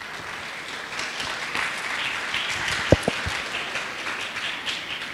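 Audience applauding after a lecture, swelling over the first couple of seconds and then tapering off. A couple of short low thumps stand out about three seconds in.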